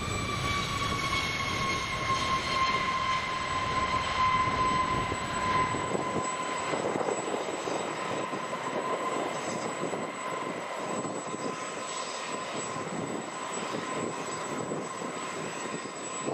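Boeing B-52H Stratofortress on its landing rollout, its eight TF33 turbofans whining at low power over a steady rushing noise. The whine falls slowly in pitch over the first few seconds, then holds steady, and the deep rumble thins out about six seconds in.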